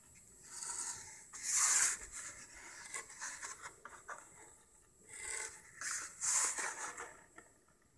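A cardboard model train body being handled and turned over, rubbing and scraping against hands and card in several short strokes, loudest about two seconds in and again just after six seconds.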